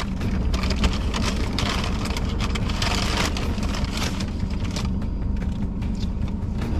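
Steady low rumble of a car running, heard from inside the cabin, with crinkling of fast-food paper bags and wrappers from about half a second to three seconds in.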